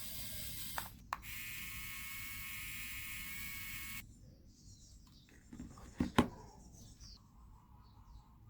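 Small electric fan motor running with a steady whine, with two clicks about a second in after which its pitch shifts. It cuts off abruptly about four seconds in, followed by a few knocks about six seconds in.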